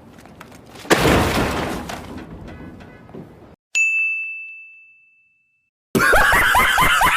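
Meme sound effects played one after another. A loud crash about a second in fades away over a couple of seconds. A single bright 'ding' bell sound effect rings out and dies away just before the middle. A brief, dense burst of many voices starts near the end and is cut off abruptly.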